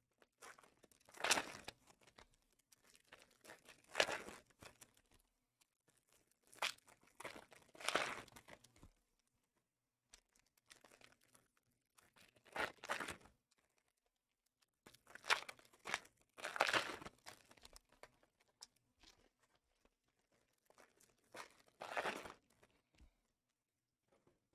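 Panini Prizm football card packs being torn open one after another, the wrappers ripping and crinkling in short bursts every few seconds.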